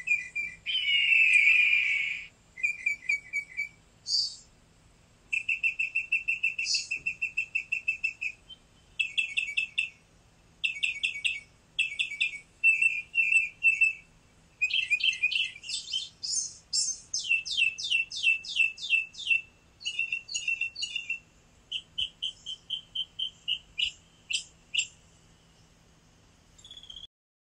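Songbirds chirping and singing in runs of rapid trills and repeated chirps, stopping abruptly near the end.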